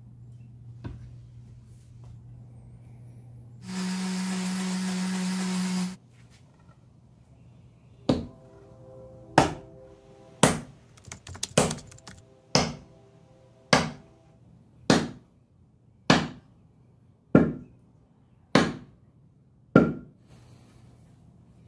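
Sledgehammer handle's butt end rapped down about eleven times, roughly once a second, to drive the steel head onto the wooden handle; some knocks are followed by a brief metallic ring. Earlier, a loud steady noise lasts about two seconds.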